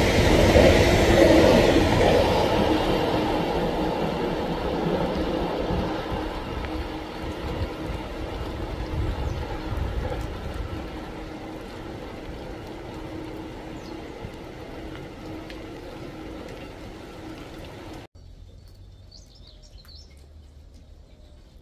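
Freight train of empty flat wagons rolling past on the rails, a rumble with a steady hum that fades away as the train recedes.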